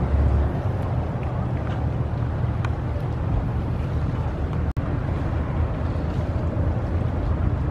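Wind rumbling on the microphone over steady outdoor harbour noise. The sound cuts out for an instant a little past halfway.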